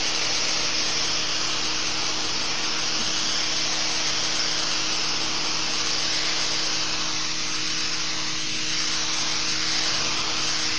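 AR Blue Clean AR383 electric pressure washer running, its motor and pump humming steadily under the loud hiss of the water jet blasting a concrete sidewalk.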